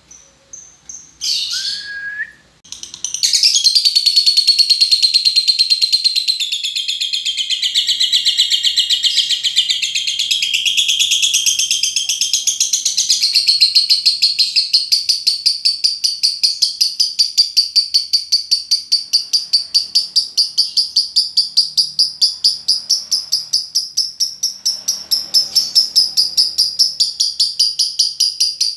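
Lovebird ngekek: a few short chirps, then from about three seconds in one long, unbroken, high-pitched rapid chatter, pulsing about four times a second. This is the long-duration 'ngekek panjang' prized in Indonesian lovebird contests.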